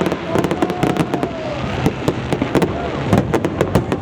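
Fireworks going off in quick, irregular succession: many sharp cracks and bangs overlapping one another, with a long tone that falls in pitch during the first two seconds.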